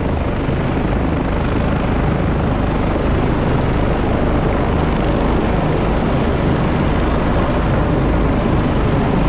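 Rescue helicopter hovering, its rotor and turbine running steadily.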